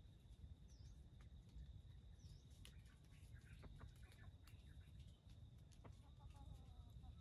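Very quiet forest ambience with a steady thin high-pitched tone, a couple of small bird chirps and scattered light clicks. Near the end a faint, distant red junglefowl rooster begins to crow.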